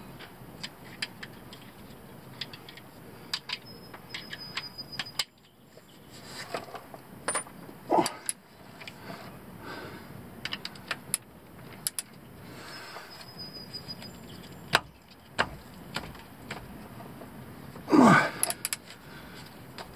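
A socket wrench and metal tools clicking and clinking while being worked on the differential's 18 mm plug. The small sharp clicks come scattered throughout, with two louder metallic knocks, one about 8 seconds in and a louder one near the end.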